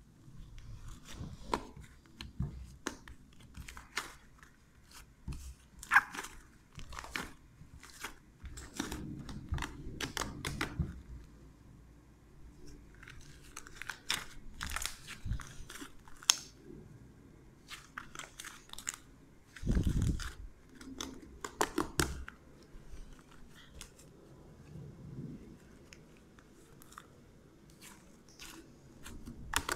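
Hands squeezing, folding and stretching a soft homemade slime of PVA glue, flour and potato starch against a wooden table: irregular sticky clicks, pops and crackles, with a duller thump about two-thirds of the way through.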